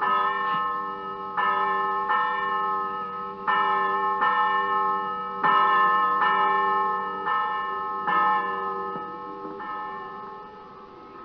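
Church tower bell tolling: about a dozen strokes about a second apart, each ringing on into the next, dying away over the last couple of seconds.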